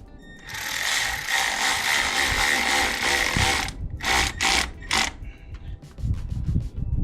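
A ratcheting mechanism clicking rapidly: one long run of about three seconds, then three short runs a little later. Low handling knocks follow near the end.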